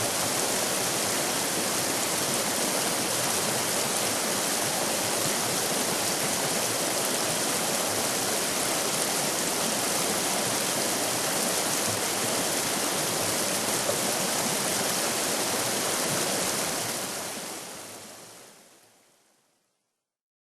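River rapids rushing, a steady roar of water that fades out about three seconds before the end into silence.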